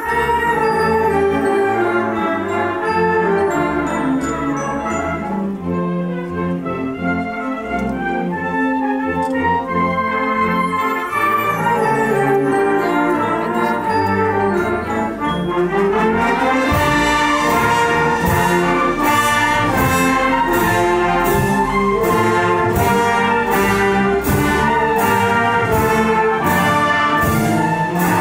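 Concert wind band playing a pasodoble, brass to the fore over woodwinds and low brass. About halfway through the sound grows fuller and a steady percussion stroke comes in on the beat.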